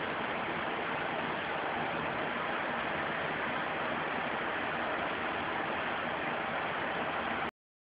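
Steady hiss of background noise with no distinct events, cutting off abruptly near the end.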